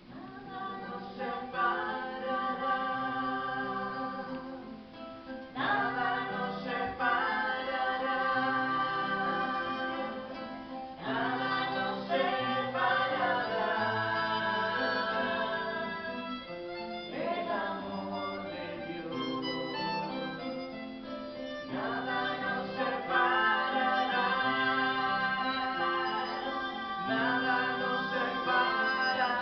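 Music with singing voices holding long notes over instruments, in phrases that begin afresh about every five to six seconds.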